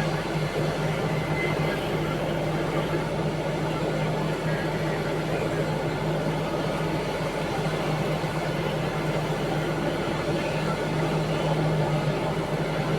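Diesel engine of heavy mining equipment running steadily, a constant low hum.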